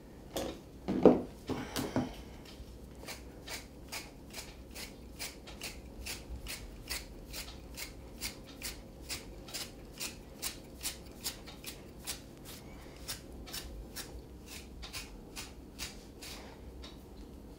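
Grooming scissors snipping through an Airedale terrier's wiry coat in a steady run of sharp snips, about three a second. A brief louder sound comes about a second in.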